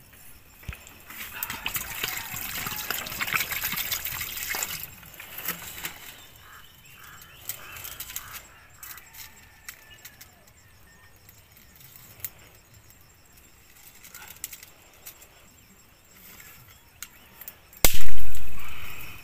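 Dry sticks and twigs rustling, cracking and snapping as they are pushed into a small campfire under a hanging cooking pot, loudest in the first few seconds, then scattered clicks and snaps. Near the end comes a sudden, very loud burst of rushing noise with a deep rumble that fades over about a second.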